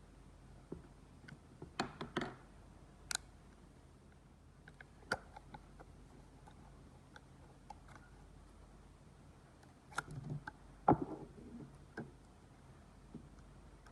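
Small plastic clicks and brief handling scrapes from a portable coffee grinder's body being worked open by hand. They come in scattered clusters, the loudest about two seconds in and again around ten to eleven seconds.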